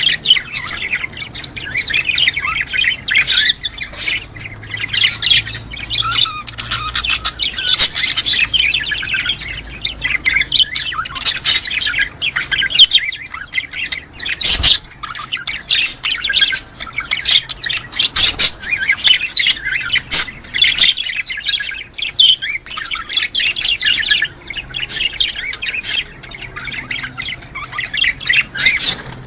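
Many small cage birds chirping and chattering together in dense, continuous, overlapping calls. This is the kind of breeding-stimulation recording played to pairs to bring them into mating condition.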